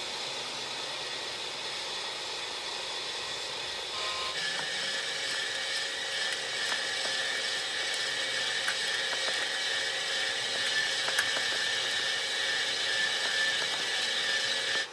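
Steady mechanical hiss and hum from radio-controlled model construction machines. About four seconds in it gives way to the louder, steady whine of a model conveyor belt's small electric drive, with scattered sharp ticks and rattle as soil and small stones pour through the hopper and across the running belt.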